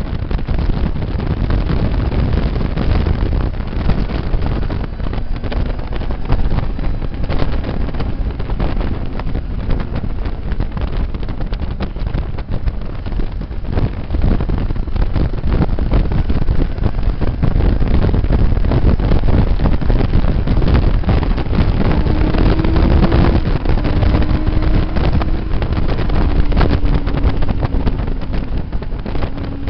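Motorcycle ridden at speed on a race track, heard from a camera mounted on the bike: heavy wind buffeting on the microphone over the engine. The engine note rises about two-thirds of the way through and then slowly falls.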